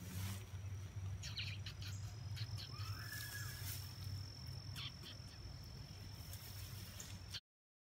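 Summer field ambience: a steady high-pitched insect trill with short bird chirps and one brief call, over a low rumble. The sound cuts off suddenly near the end.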